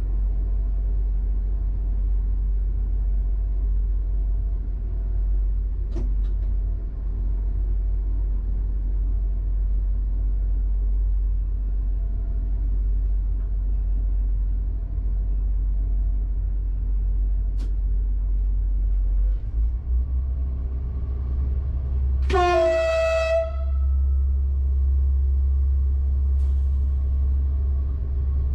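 Steady low rumble of an SNCF AGC (B82500-series) railcar running slowly through a tunnel, heard from inside the driver's cab; the rumble grows a little heavier about two-thirds of the way in. A single horn blast of about a second sounds about three-quarters of the way in.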